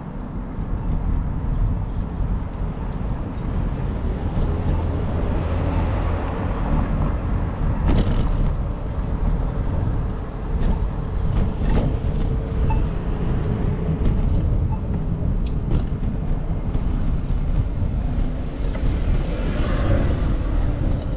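City street traffic and road noise heard from a moving bicycle: a steady low rumble with a few sharp clicks, and a swell of passing-vehicle noise near the end.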